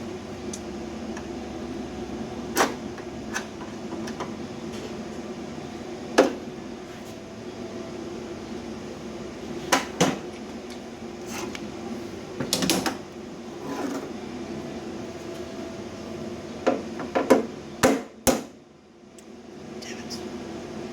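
A steady mechanical hum with a scattered series of short knocks and clicks, a few of them in a quick cluster near the end; the hum drops away briefly just after that cluster and then comes back.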